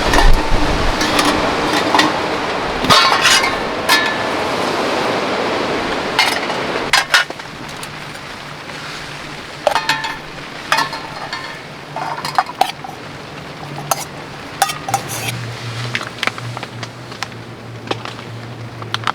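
Rain falling hard, cutting down about seven seconds in, then light clinks and taps of camp cookware and utensils being handled over a faint steady low hum.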